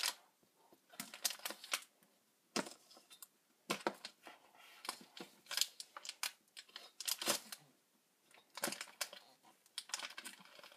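Plastic wrapper of a block of Fimo polymer clay crinkling and crackling in irregular bursts with short pauses as it is worked open by hand.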